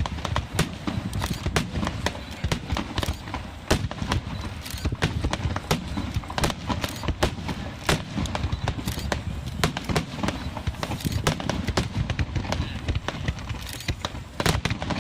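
Fireworks going off: a dense, irregular run of sharp pops and crackles, several a second, over a low rumble.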